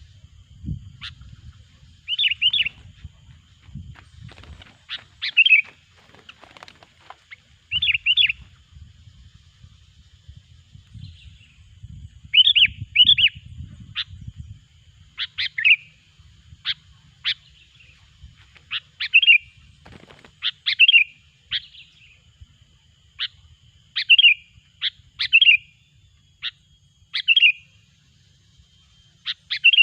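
Sooty-headed bulbul calling repeatedly: short sharp notes and quick double chirps every second or two, the loud calls used as a lure to draw other bulbuls in.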